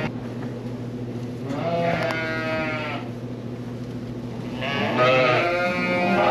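Sheep bleating: one long bleat about one and a half seconds in, and another, louder one that starts near the end, over a steady low background hum.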